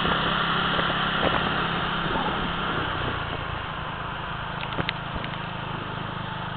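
Small motorcycle's engine running steadily under way, with wind and road noise rushing over the microphone; about three seconds in, the engine note drops and the sound eases off a little. A couple of faint clicks come near the five-second mark.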